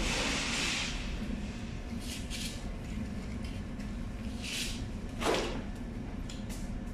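Boning knife cutting and scraping through a whole pig carcass: several short scraping strokes, the loudest about five seconds in, over a steady low machinery hum.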